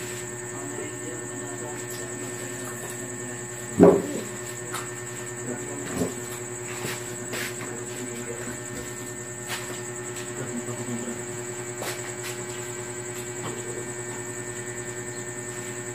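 Steady high-pitched insect trill, with a steady low hum underneath. A brief loud sound comes about four seconds in.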